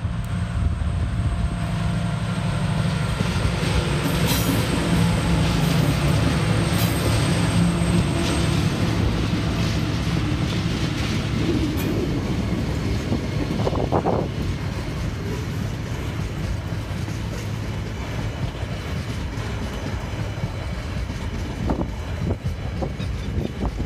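TasRail diesel-electric locomotives TR13, TR17, TR15 and DQ 2008 pass close by on a container train, their engines loud for the first several seconds. The container wagons follow, rolling past with occasional wheel clicks on the rails.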